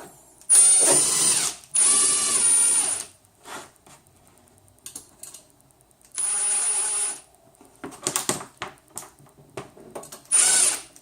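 Power drill-driver driving screws in four short runs of about a second each, with a high steady whine, and clicks and knocks of handling between the runs.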